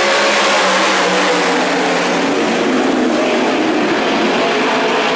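A pack of winged sprint cars' 410 V8 racing engines running hard on a dirt oval. Several engine notes overlap, their pitches sliding up and down as the cars throttle through the turns.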